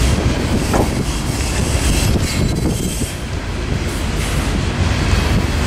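Norfolk Southern diesel freight locomotive running close by: a loud, steady, low rumble.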